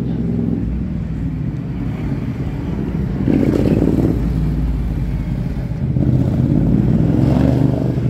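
A motor vehicle engine running steadily. It swells louder about three seconds in and again near the end.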